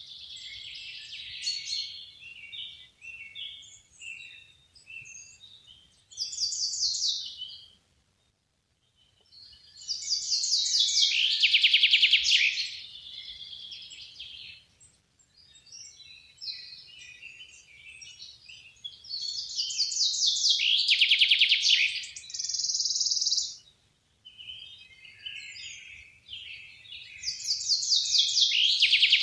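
Songbirds singing: long, rapid trilled songs come about every eight to nine seconds, with scattered shorter chirps in between and two brief silent gaps.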